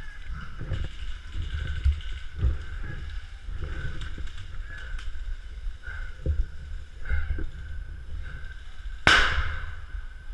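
Repeated dull thuds and rustling, and one sharp, loud crack with a short ringing tail about nine seconds in.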